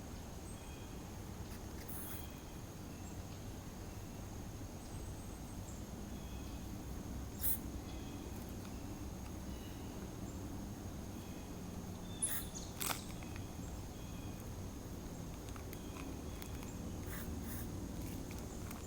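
Faint steady background noise with a constant thin high tone and a few brief sharp clicks, two of them close together about twelve seconds in.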